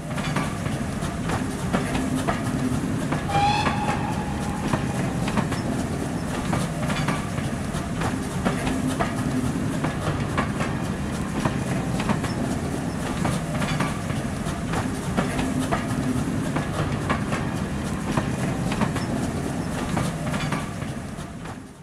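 A train running past at speed, its wheels clicking steadily over the rail joints. A brief rising whistle sounds about three seconds in.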